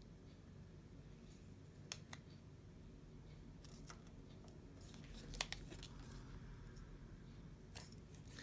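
Faint paper handling: a planner sticker peeled from its backing and pressed onto the page, with a few light clicks and ticks over a low steady room hum.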